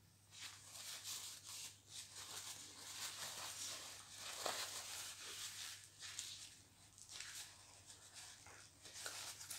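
Paper napkin rustling and crinkling as it is unfolded and pressed to the face, a soft, irregular crackle with many small snaps.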